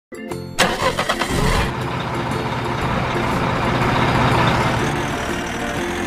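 A motor vehicle engine starting with a sharp clack and then running steadily, with background music mixed in towards the end.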